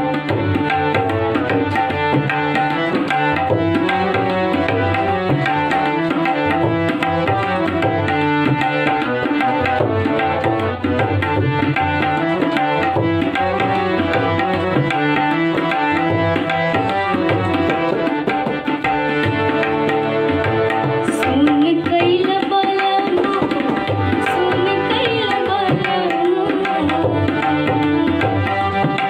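Instrumental interlude of a Bhojpuri folk song: a hand drum keeps a steady rhythm under held melodic tones, with no singing.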